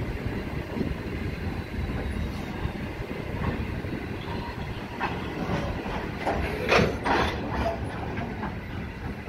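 Freight train of coal hopper wagons rolling past close by: steady wheel and rail rumble with clickety-clack over the rail joints. A couple of louder sharp noises come about two-thirds of the way through.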